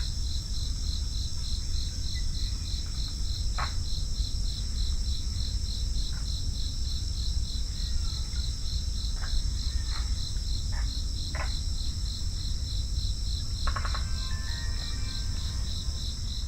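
Crickets chirping: a steady pulsed chirp about three times a second over a continuous high trill, with a low rumble underneath. A few faint short sounds come in the middle, and a faint call near the end.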